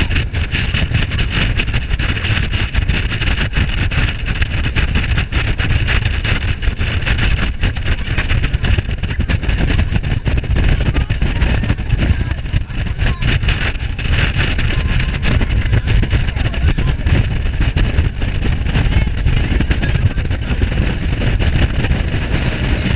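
Speedboat running at speed over open sea: a steady, loud rush of engine, wind and spray.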